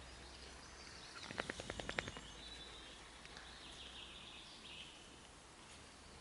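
Quiet woodland ambience with faint birdsong. About a second in, a rapid run of about a dozen sharp clicks lasts just under a second.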